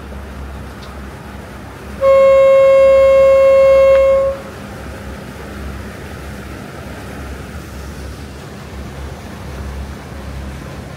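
A boat horn sounds one long, steady blast about two seconds in, lasting a little over two seconds. Under it runs the steady low drone of the water taxi's engine.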